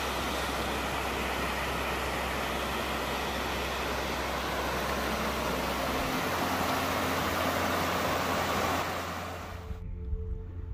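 Small waterfall and rocky beck rushing steadily; the sound cuts off suddenly near the end.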